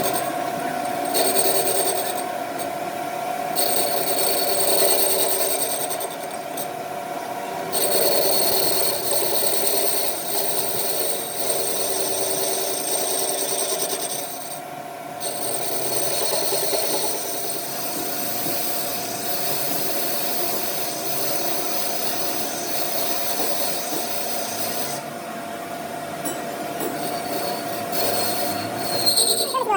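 A metalworking tool working on metal during a crankshaft pulley repair. It runs steadily with a high scraping sound that comes and goes in stretches of a few seconds, dropping out around the middle and again near the end.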